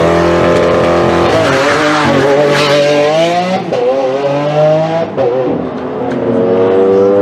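Sports car engine and exhaust accelerating hard. The pitch climbs steadily and drops sharply at an upshift about halfway through and again a second and a half later, then climbs once more.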